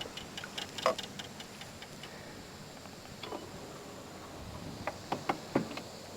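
Fishing reel ticking lightly and quickly as line is reeled in, then a few scattered clicks.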